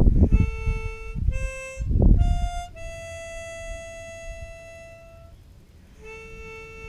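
Harmonica playing slow single notes, with one long held note in the middle. Brief bursts of low rumble come near the start and about two seconds in.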